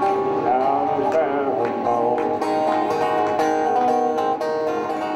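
Background music of plucked strings, a banjo and guitar, in a country or bluegrass style.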